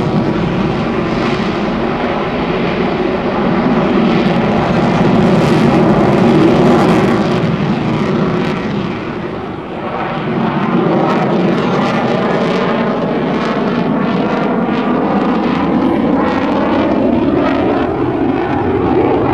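F-16 Fighting Falcon's jet engine at high power, afterburner lit at the start: a loud, continuous rush with a slow sweeping, wavering quality. It dips briefly about halfway through and then builds again.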